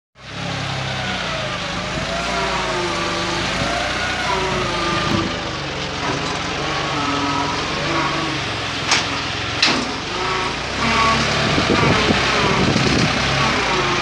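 A John Deere tractor's diesel engine running under load while its front loader works sand, with a higher tone wavering up and down over the steady engine note. Two sharp knocks come about nine and ten seconds in.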